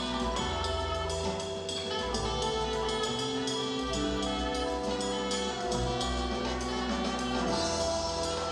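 Music playing for a stage dance routine, with a steady drum beat under sustained bass and melody notes.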